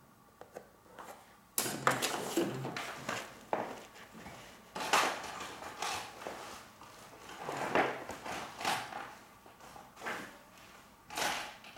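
A few light clicks as the poster frame's soft metal retaining tabs are pressed down with a knife blade. Then irregular rustling and clattering of tools and materials being handled on a work table, rising and falling several times.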